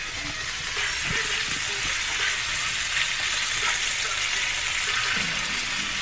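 Flour-coated chicken breasts sizzling steadily in shallow oil in a nonstick skillet.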